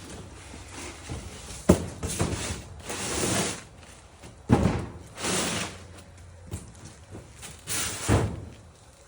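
Plastic seed-starting trays and moisture domes being handled: three sharp knocks spaced a few seconds apart, with rustling and clattering between them.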